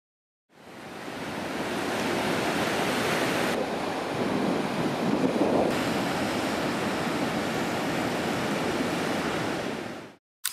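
Steady rush of surf on a beach, with wind on the microphone; it fades in about half a second in and fades out near the end.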